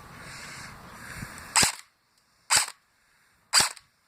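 A 380 fps airsoft gun firing single shots on semi-auto. There are three sharp cracks, about one a second, starting about one and a half seconds in.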